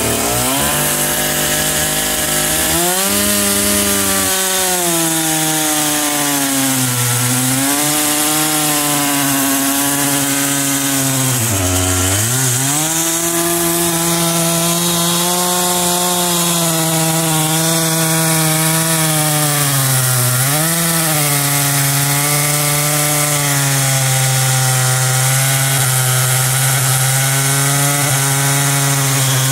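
Husqvarna two-stroke chainsaw running at full throttle while cutting through a large log, its engine note steady but sagging and recovering three times as the chain bogs in the cut, most deeply about twelve seconds in. A steady hiss of the chain tearing out chips runs under the engine.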